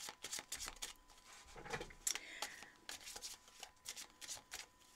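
Tarot deck being shuffled by hand: a run of quick, irregular soft card clicks and slaps as the cards are worked from one hand into the other.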